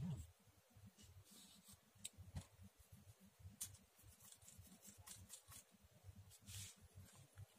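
Near silence with a few faint, scattered scratches and rustles of a hand and pen moving over a sheet of paper.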